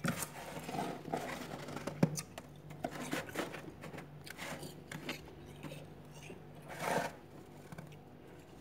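Fingers digging into and squeezing soft, fluffy freezer frost: a string of irregular crunches, loudest about two seconds in and around seven seconds. A low steady hum runs underneath.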